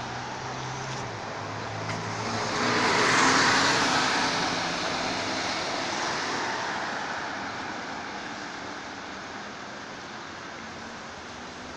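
A Mercedes-Benz articulated city bus drives past close by and pulls away. Engine hum and tyre noise swell to their loudest about three seconds in, then fade slowly as the bus recedes down the street.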